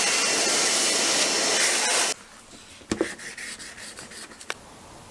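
Vacuum cleaner running with its crevice nozzle sucking up water from the boat's bilge, a steady hiss that starts and cuts off abruptly about two seconds in. Then a couple of light knocks.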